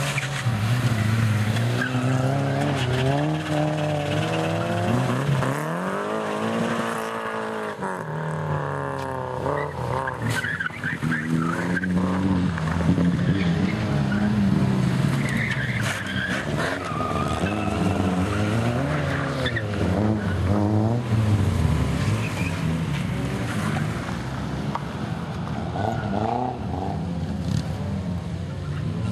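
Race car engines revving hard, their note rising and falling again and again through the gears as the cars drive the course, with more than one engine heard at once at times.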